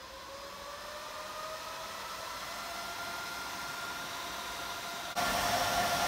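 Three powerful cooling fans on the hot-side aluminium heat-sink block of a home-built Peltier cooler, spinning up: a whirring hum whose whine rises in pitch over about four seconds and then holds steady. The hum gets suddenly louder about five seconds in.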